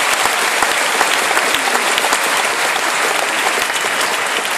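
Large stadium crowd applauding: a dense, steady clapping from thousands of spectators that begins to ease off near the end.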